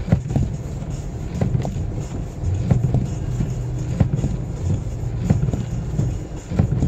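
Inside a Mazda3 driving on a snow- and ice-covered road: a steady low engine and road hum with irregular knocks and thumps scattered through it.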